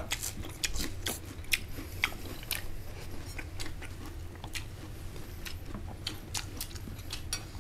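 A person chewing and biting food close to the microphone, with irregular crunches and mouth clicks, several a second.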